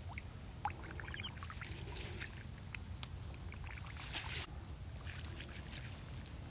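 Water swishing and sloshing as a hand-held cone net is drawn through shallow pond water, with a stronger swish about four seconds in. A steady low rumble sits underneath, and a few short high chirps come and go.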